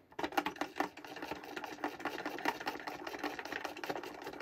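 The plastic pump plunger of a 1993 Mattel McDonald's Happy Meal Magic Drink Fountain toy being pumped up and down rapidly to mix the drink in its tank: a fast, even plastic clatter.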